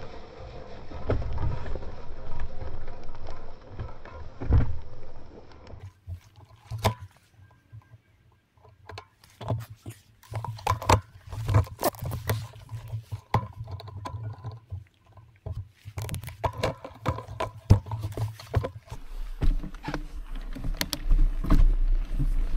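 Mountain bike rolling over a dirt forest track, with a stick caught in the rear derailleur. Tyre and wind rumble on the microphone for the first few seconds, then a long run of irregular clicks and rattles from the bike. Low wind rumble returns near the end.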